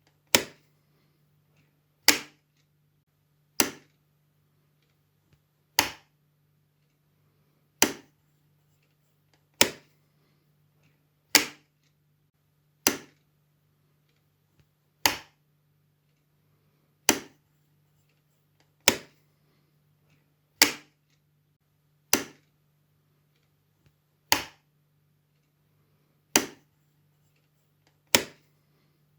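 Light switch flicked on and off, one sharp click about every two seconds, sixteen clicks in all.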